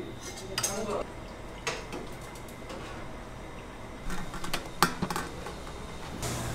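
Metal kitchenware clinking: a ladle knocking against stainless-steel pots, then a cluster of sharp clacks about four to five seconds in as an electric rice cooker's lid is unlatched and lifted.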